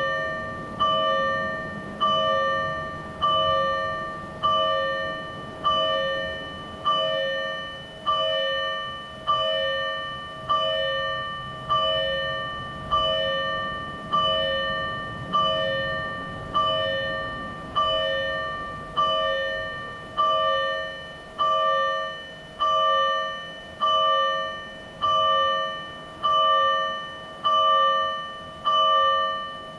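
Fire engine's electronic alarm bell from a TWS-5102V siren amplifier, sounding single strokes at a slow, even pace of a little under one a second. Each stroke rings with a few clear bell tones and fades before the next, the slow-speed alarm-bell pattern.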